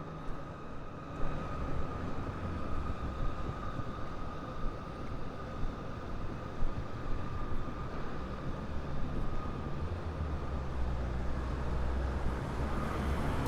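Outdoor street noise with a low vehicle engine rumble that grows louder over the last few seconds, under a steady high-pitched whine that fades out near the end.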